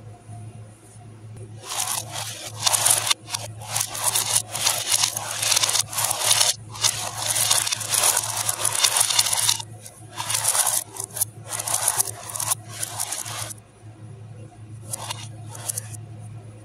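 Glass marbles pushed and rolled across a metal tray by hand, a busy run of scraping and clicking that eases to a few scrapes near the end, over a steady low hum.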